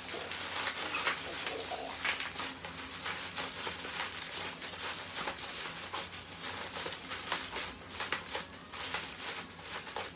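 Bubble wrap and a plastic sleeve crinkling and crackling as a parcel is handled and unwrapped by hand, with a sharp crackle about a second in.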